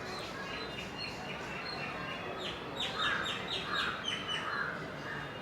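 A bird chirping in quick runs of short, falling notes, busiest and loudest in the second half, over a steady background hiss.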